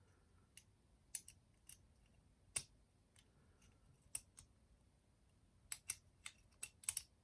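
Sharp metallic clicks of a lock pick and tension wrench working the pins inside a Yale padlock, irregular and scattered, with a quick run of clicks near the end.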